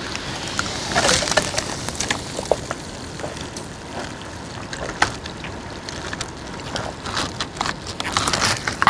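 Close-up sipping of iced cola through a straw from a plastic cup, with many small clicks and a few louder slurps, one about a second in and others near the end.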